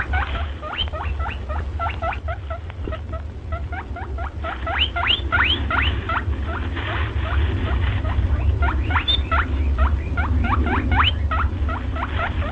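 Rabbit squeaking: short, sharply rising squeaks in quick runs of several a second, over a steady low rumble.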